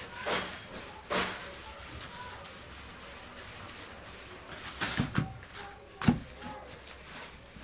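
Two rasping strokes of a hand file or rasp, about a second apart, then a short cluster of light knocks and one sharper knock.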